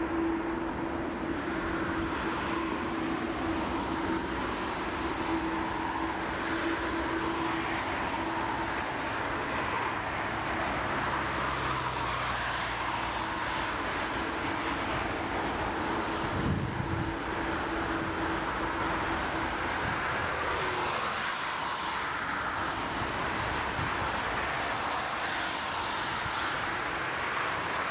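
Twin turbofan engines of an Airbus A330 at takeoff thrust through the takeoff roll and liftoff: a steady jet roar with a held hum, and a brief low thud a little past halfway.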